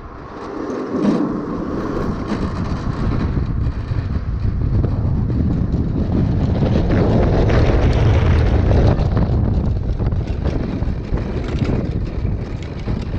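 Wind noise and rolling rumble from a land yacht moving at speed: a steady low rumble with wind buffeting the microphone. It swells somewhat about seven to nine seconds in.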